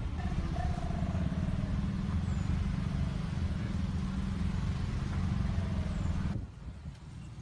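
Steady low rumble, like a moving vehicle or wind buffeting a phone microphone. It cuts off abruptly about six seconds in, leaving a much quieter outdoor background.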